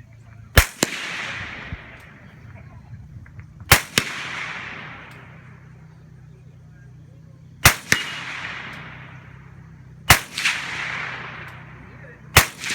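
Rifle fire: five single shots fired slowly, about two and a half to three seconds apart. Each sharp crack is followed closely by a fainter second crack and a long echoing tail.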